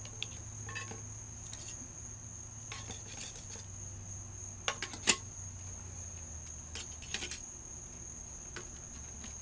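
Crickets trilling steadily, with scattered light metallic clinks of camp cookware being handled. The sharpest clink comes about five seconds in.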